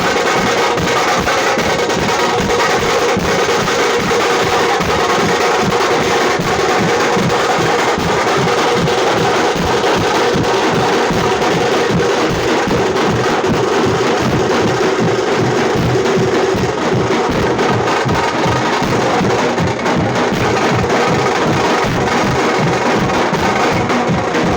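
Tamate, the South Indian folk frame drum, beaten with sticks in a fast, unbroken rhythm.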